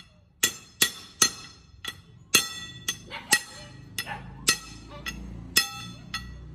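Hammer blows on the top end of an upright twisted steel bar, about a dozen sharp metallic strikes at an uneven pace of roughly two a second. Each strike rings on briefly with a bright, bell-like ring.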